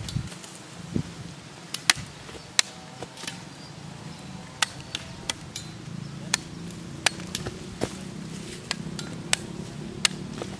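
Machete chopping cassava tubers off their stems: a series of sharp, irregular chops, roughly one or two a second.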